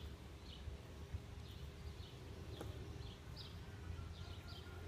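Faint bird chirps, short and high, repeating irregularly about twice a second over a low steady hum.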